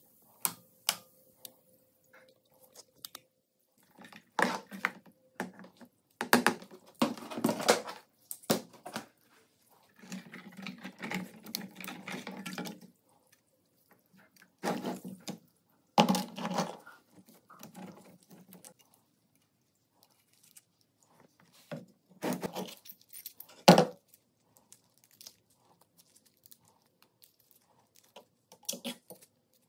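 Gloved hands handling rusty gun parts and twisted copper wire: scattered clicks, rustles and knocks of metal and wire, with one sharp knock about two-thirds of the way through.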